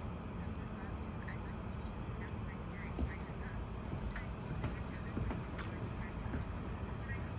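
Crickets trilling in a steady, continuous high-pitched chorus, with a few faint short chirps and a low rumbling noise underneath.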